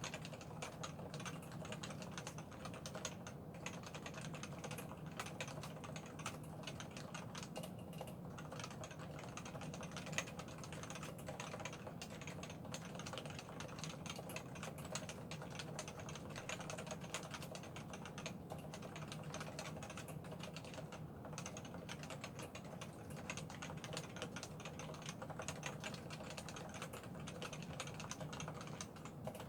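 Continuous typing on a Realforce 87u keyboard with uniform 45 g Topre electrostatic capacitive switches, unlubed factory sliders and PBT dye-sub keycaps: a dense, steady run of muted key strokes, one louder stroke about ten seconds in.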